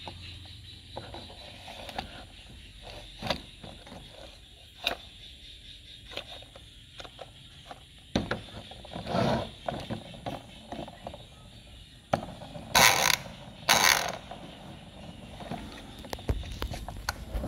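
Hard plastic toy truck parts being handled as a plastic wheel is fitted onto its axle: scattered clicks and rattles, with two louder harsh scrapes about a second apart late on.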